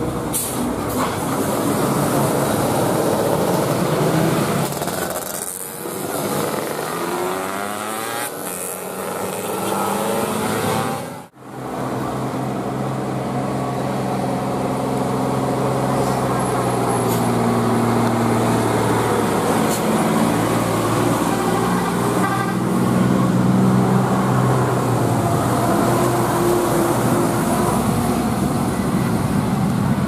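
Telolet multi-tone air horns on passing Indonesian tour buses and a truck, sounding in held notes that step from pitch to pitch like a tune over heavy engine noise. A brief drop-out comes about eleven seconds in.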